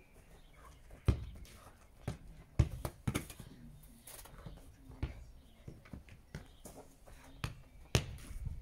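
Football being kicked and touched on grass during a dribbling drill: irregular sharp thuds of foot on ball, about ten in all, the loudest about a second in and about two and a half seconds in.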